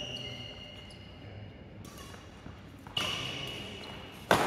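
Sports shoes squeak briefly on the court floor, then about four seconds in a badminton racket strikes a shuttlecock with one sharp crack that echoes in the hall.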